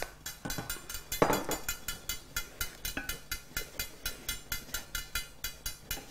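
Wooden spoon stirring and scraping a dry, oil-free mix of roasted peanuts, chickpea flour and chopped coriander stems in a stainless steel pan, in quick even strokes, with one louder knock about a second in.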